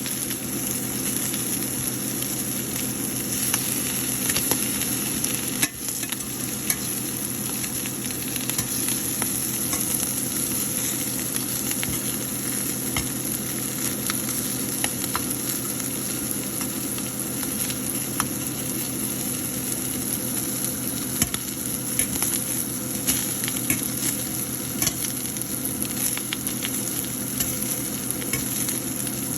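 Fish frying in hot oil in a pan: a steady sizzle with many scattered sharp pops.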